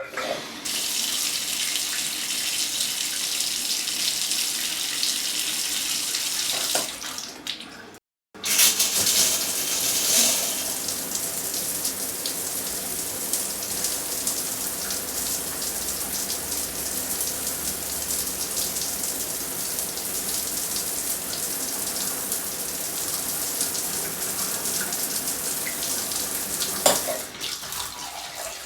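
Shower running: a steady hiss of spray falling, which dies away about seven seconds in, cuts out for a moment, then comes back and runs on. A sharp knock sounds near the end, after which the water fades.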